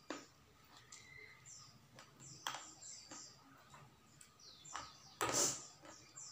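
Mouth sounds of eating raw vegetables and rice by hand: quiet chewing and small clicks, with one loud crunchy bite about five seconds in. Small birds chirp repeatedly in the background.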